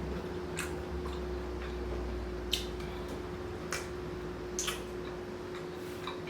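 A person chewing rotisserie chicken close to the microphone: a few sharp, wet mouth clicks and smacks about a second apart, over a steady low hum.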